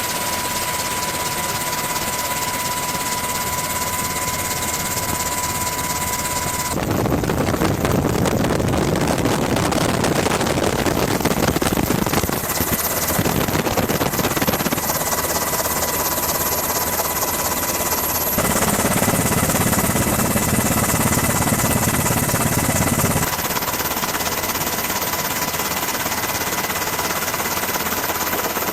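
Aircraft engines running loudly, a steady whine with a high tone for the first several seconds, then a heavier rushing roar that changes abruptly several times as the shots cut.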